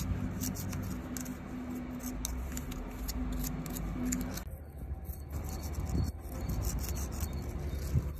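Repeated scraping and rubbing of a hand scraper against rusty, greasy steel around a wheel loader's bucket-cylinder pin, in short irregular strokes. A steady low hum sits under it and stops about halfway through.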